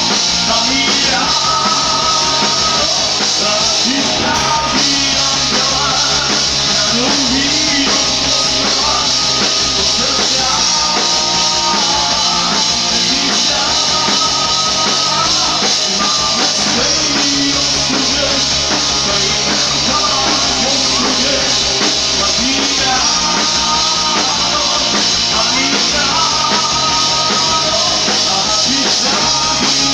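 Live rock band playing loud and steady: electric guitars over a drum kit, with the sound of the stage PA.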